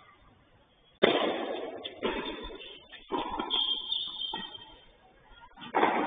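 Tennis rally: a string of sharp racket-on-ball hits and ball bounces about a second apart, starting about a second in.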